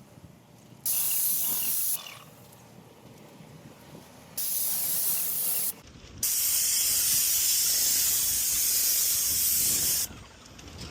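Paint sprayer spraying a garage door in three passes: a short burst, a second short burst, then a longer spray of about four seconds, each a steady hiss that starts and stops abruptly.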